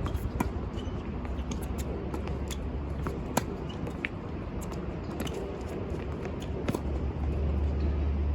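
Strong wind buffeting the microphone as a low rumble that grows heavier near the end, with scattered sharp clicks and knocks on the court, one louder snap in the middle.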